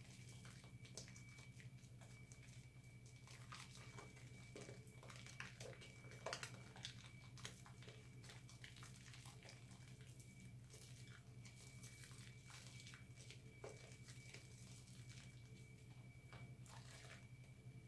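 Faint wet squishing and crackling of soap lather as hands squeeze and rub a bar of soap in thick foam, in many small irregular crackles. A steady low hum and a thin high whine run underneath.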